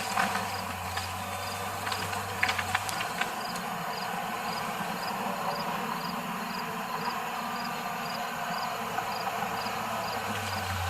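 Outdoor ambience: a low engine-like hum that drops out about three seconds in and comes back near the end, under a small high chirp repeating evenly about twice a second, with a few sharp clicks in the first three seconds.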